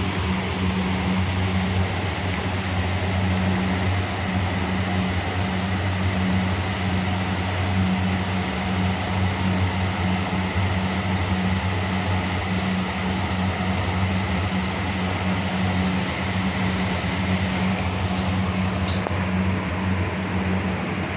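Electric blower fans mounted on top of metal drums in an onion heap, running steadily: a constant electric hum under a rush of moving air, ventilating the stored onions.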